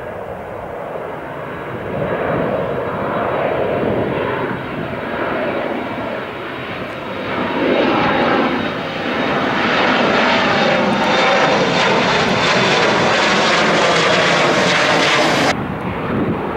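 Embraer ERJ 170's twin GE CF34-8E turbofan engines at climb-out thrust just after takeoff, the noise building as the jet passes overhead. Near the end it drops abruptly to a quieter level.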